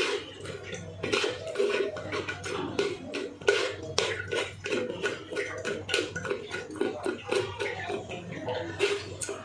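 Steel spoon scraping and pressing boiled grape pulp through a plastic strainer's mesh over a steel pot, in quick irregular strokes, with small knocks of metal on the strainer and pot; one sharper knock about three and a half seconds in.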